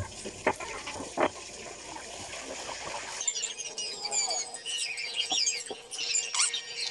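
A steady hiss with a couple of clicks, fitting fish frying in hot oil, cuts off abruptly about three seconds in. Many quick, high chirps of small birds follow.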